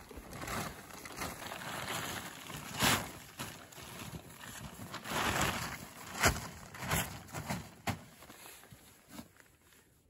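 Plastic tarp rustling and crinkling as it is folded and pulled over a bundle, with several sharp crackles when it is snapped taut; it dies down near the end.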